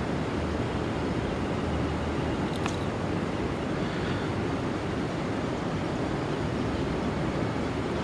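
Steady rushing of long breaths blown into a smouldering bundle of bamboo shavings, coaxing a char-cord ember to flame. A single click about two and a half seconds in.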